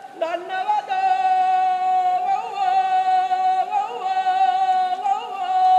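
A man singing an andaheraya, the traditional Sri Lankan long-drawn vocal call, unaccompanied. He holds long, steady high notes, breaking them with short wavering turns.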